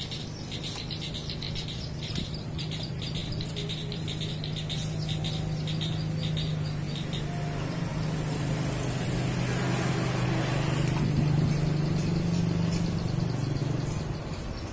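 A motor engine running at a steady pitch, growing louder to a peak about eleven seconds in and fading away near the end, as a vehicle passing by does. Fast, rhythmic high-pitched chirping sounds over the first few seconds.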